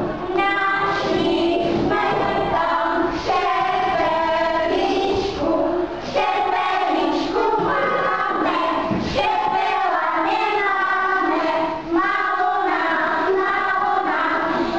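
Small children and women singing a folk dance song together, with sung notes held in a steady rhythm throughout.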